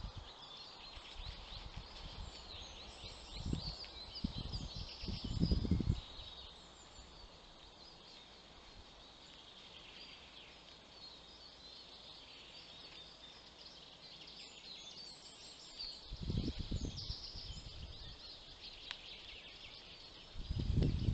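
Small forest songbirds singing, many high chirps and trills overlapping throughout. Low, muffled rustling thumps come twice, about three to six seconds in and again about sixteen seconds in, and a louder one starts at the very end.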